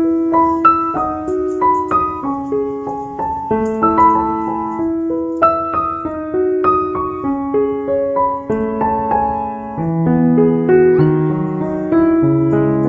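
Background piano music: a slow melody of single struck notes over chords, with lower bass notes joining about ten seconds in.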